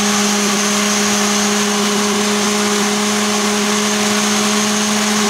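Ninja Mega Kitchen System 1500-watt blender motor base running steadily at full speed, its blade blending a smoothie in the single-serve Nutri Ninja cup. It makes a loud, even whine with a constant pitch.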